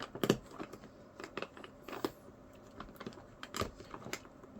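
Scattered clicks, taps and crinkles of small plastic toy parts and packaging being handled and pried at. The loudest is a sharp click a fraction of a second in.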